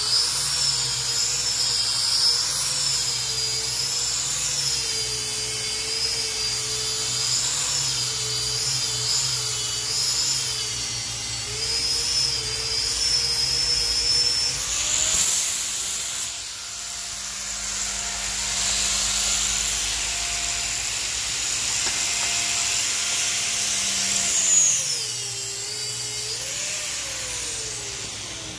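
Air-powered orbital sander whining as it sands a pine slab, its pitch wavering with the pressure on the wood. About halfway there is a short rush of hiss, then the sander runs at a steady pitch off the wood and winds down with a falling whine near the end.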